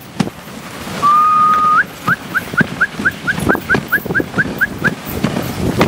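A person whistling: one long, steady note, then a quick run of about a dozen short rising chirps, about four a second. Under it are the irregular knocks and rattles of a dog sled running on a snowy trail.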